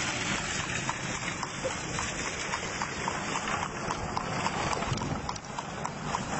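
Wind buffeting the microphone, with a light regular clopping of a horse's hooves, about three a second, as the horse pulls a buggy along the road.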